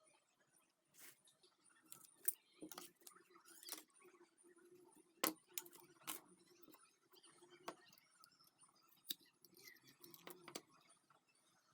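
Scattered sharp metallic clicks and taps, irregularly spaced, from a Zippo lighter and small parts being handled, over a faint steady hum.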